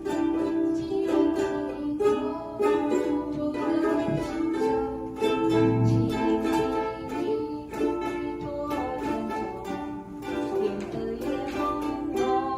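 Ukulele strummed in a steady rhythm, playing a run of chords with a melody.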